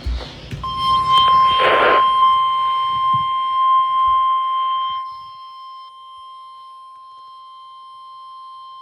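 Weather-radio warning alarm tone for a severe thunderstorm warning: a single steady tone a little above 1 kHz, the 1050 Hz tone that NOAA Weather Radio sends before a warning. It starts under a second in and holds without a break, with a short rush of noise about two seconds in.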